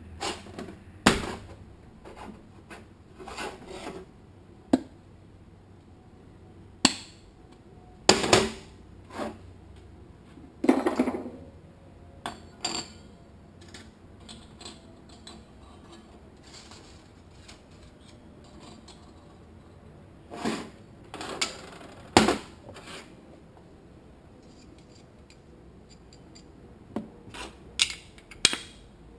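Steel automatic-transmission parts (drums, pistons, retainers, washers) clanking and clinking as they are handled and set down on a metal workbench: irregular sharp knocks, a few ringing briefly.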